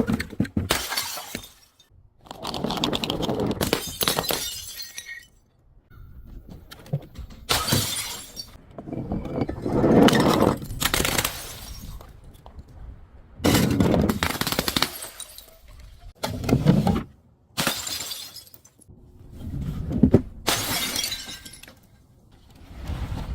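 Glass bottles breaking and being crushed: a series of about seven or eight crunching, shattering bursts, some lasting a second or two, with short pauses between them.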